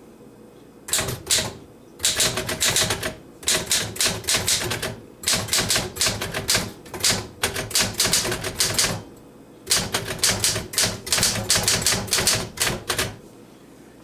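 1937 Smith Corona manual typewriter being typed on: a quick clatter of keystrokes, several a second, in runs broken by short pauses, stopping shortly before the end. It is a typing test of the freshly repaired machine.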